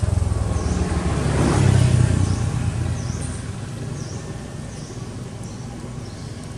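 A motor vehicle's engine passing nearby, a low hum that swells to its loudest about two seconds in and then fades away. A small high chirp repeats behind it.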